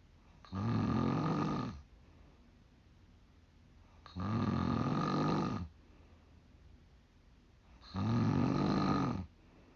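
A 45-year-old woman snoring in her sleep: three long snores, one every three to four seconds, with quiet breaths between them.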